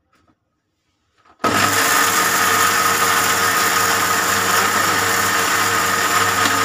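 Electric mixer grinder starts about a second and a half in and runs steadily and loudly. It is coarsely grinding a dry spice mix of fenugreek seeds, fennel seeds, turmeric, chilli and salt in its steel jar.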